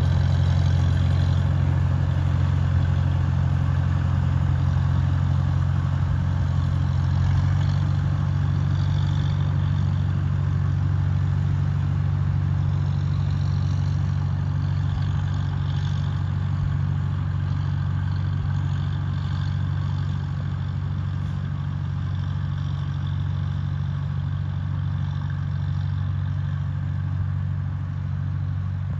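1950 Farmall M's four-cylinder engine running at a steady throttle as the tractor is driven across a field, a constant low drone that fades slightly over time.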